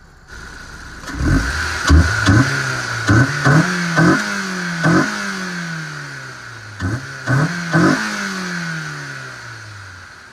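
Honda S2000's four-cylinder engine free-revving: a string of quick throttle blips, each jumping the revs up before they fall away slowly, then a pause and three more blips near the end.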